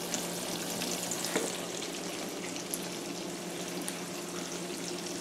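Breaded eggplant slices shallow-frying in a pan of oil: a steady sizzle with fine crackling.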